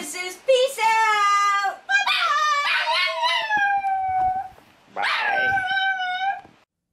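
Small dog howling in three drawn-out calls, each sliding down in pitch, prompted to 'talk' back to its owner.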